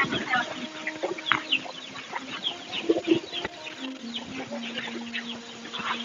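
Chickens clucking, a run of short, sharp calls one after another. A long steady low tone is held under them from about two-thirds of the way in.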